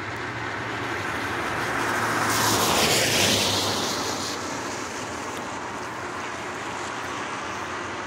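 A car passing by on a wet road: the hiss of its tyres on the wet pavement and its engine noise build to a peak about three seconds in, then fade away.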